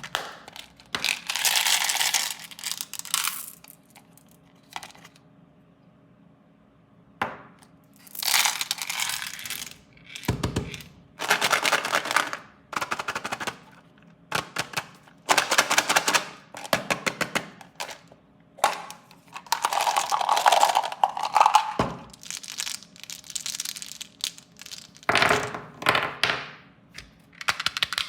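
Plastic candy and toy packaging being handled, crinkled and torn open in bursts of one to three seconds, with sharp clicks and snaps between them.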